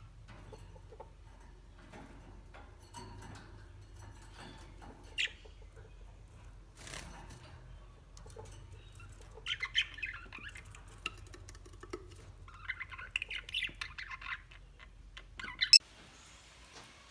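A bird calling in short, rapid chattering runs, loudest about ten and thirteen seconds in, with a few single sharp calls, over a low steady hum.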